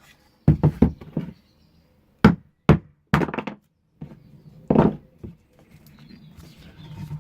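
A series of dull knocks and thunks, irregularly spaced and mostly in the first five seconds, as a glued wooden casting mould is struck to knock cured polyester-resin pen blanks free. Quieter scraping and shuffling follows near the end.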